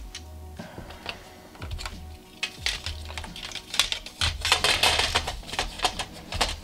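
Background music with a steady bass beat under quick clicks and clatter of hard plastic and metal parts being handled: a car stereo's plastic bezel and metal chassis. The clicking thickens and grows loudest about halfway through.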